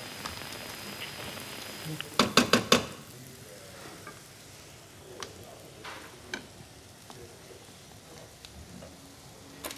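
Coarsely chopped onions sizzling in oil in a stainless-steel pan while a wooden spoon stirs them and knocks against the pan. A quick run of four or five sharp knocks comes about two seconds in and is the loudest sound; a few single clicks follow later.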